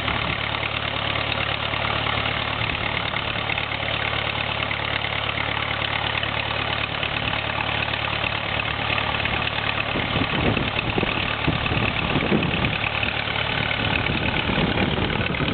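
Engine idling steadily with a low hum, serving as the vacuum source that draws on a small clear vacuum chamber through a hose. Irregular low knocks and rattles come in about ten seconds in, and the sound grows a little louder for a few seconds.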